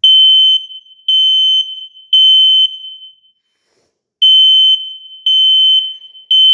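Smoke detector sounding its test alarm: a high-pitched beep in groups of three, each beep about half a second long, with a pause of about a second and a half between groups. This is the standard temporal-three evacuation pattern, heard here twice.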